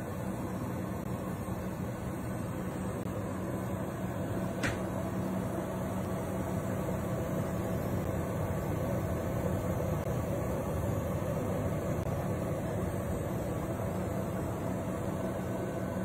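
Kalorik MAXX air fryer oven running: the steady whir of its convection fan with a low hum underneath. A brief click sounds about four and a half seconds in.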